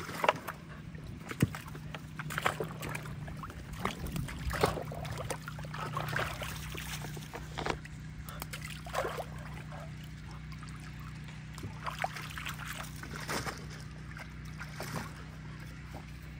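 Water splashing and sloshing irregularly as a puppy wades and jumps about in shallow tubs of water, starting with a tennis ball plopping into a stock tank with a loud splash.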